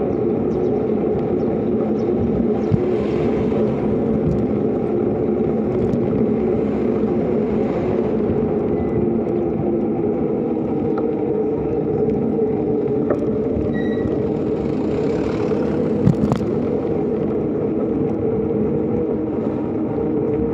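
Steady engine hum and road noise from a small vehicle being ridden at an even speed, with a brief sharp click a few seconds in and another past the middle.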